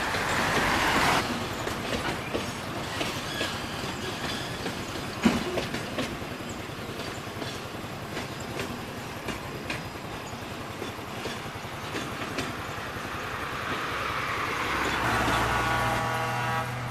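A freight train's wagons rolling past, with rattling and clicking as the wheels run over the rail joints. There is one sharp knock about five seconds in, and a steady pitched tone sounds near the end.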